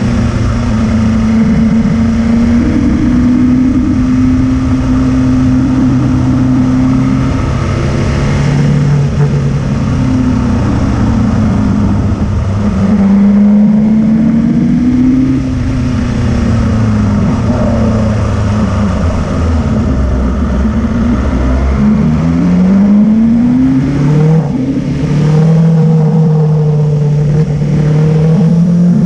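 Motorcycle engine running under way on a climb, its pitch rising and falling with the throttle and gear changes; about three-quarters through it winds up in a quick rising whine, then drops as it shifts.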